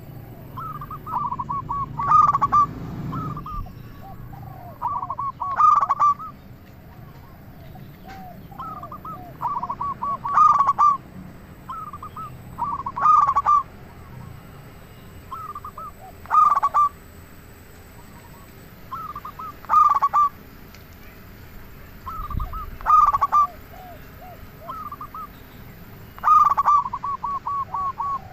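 Male zebra dove (perkutut) cooing over and over: each phrase is a quick run of bubbling notes around a louder accented note, repeated about every three to four seconds, with softer lower coos between some phrases.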